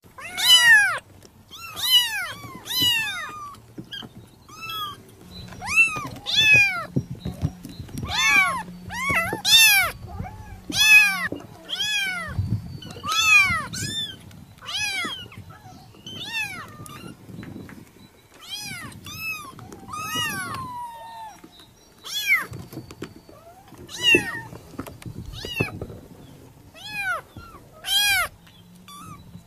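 Domestic cat meowing over and over: short high-pitched meows, each rising then falling in pitch, about one a second with a few short gaps.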